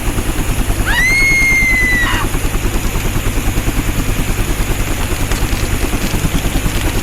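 Helicopter rotor beating in steady rapid pulses, with a short high whistling tone that rises and then holds for about a second near the start.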